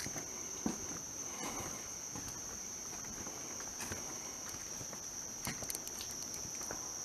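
Steady high-pitched chorus of night insects such as crickets, with a few light footsteps and scuffs now and then.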